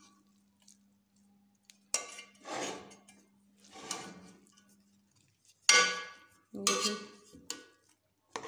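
Metal spoon scooping cooked rice and scraping and clinking against a steel pot, in separate strokes starting about two seconds in, some with a brief metallic ring. A faint steady hum runs under the first half.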